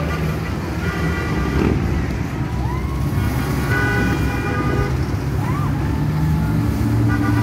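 A slow convoy of cars and pickup trucks driving past one after another, their engines running steadily at low speed.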